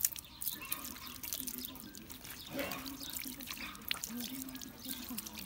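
Water poured over a puppy's back during a bath, splashing and dripping off its fur with a continuous spatter.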